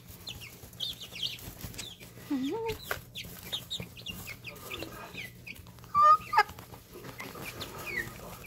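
Young chicks peeping in short, falling chirps while they dust-bathe in pine shavings, with scattered rustling of the shavings. A lower, bending call comes about two and a half seconds in, and a louder squawk about six seconds in is the loudest sound.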